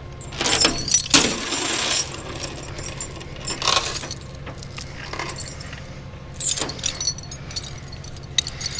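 Light metallic jingling and clinking with a few sharp clanks, over a steady low engine hum.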